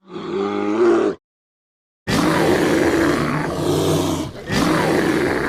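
Bear roaring: a roar lasting about a second, a second of silence, then a longer roar with a brief break and another roar that runs on.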